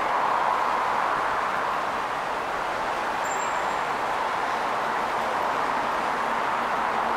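Steady, even rush of vehicle noise with no distinct events, and a brief faint high tone about three seconds in.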